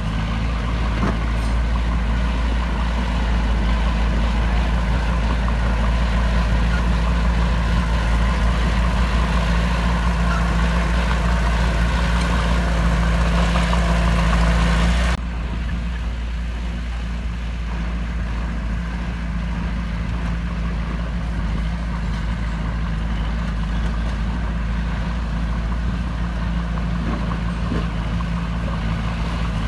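Heavy diesel engine of earthmoving equipment running steadily. About halfway through, the sound drops abruptly to a quieter engine drone.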